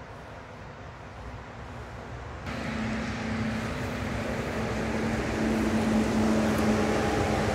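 Engine of a timber truck loaded with wood, a steady drone that grows louder as it draws nearer. The sound jumps up suddenly about two and a half seconds in.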